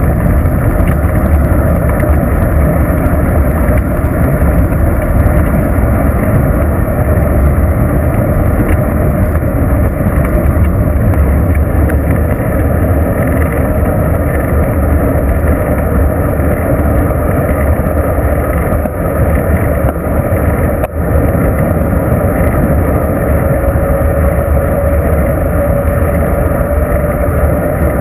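Steady wind rush and rumble on the microphone of a bicycle-mounted GoPro while riding along a paved road, heaviest in the low end, with a brief dip about three quarters of the way through.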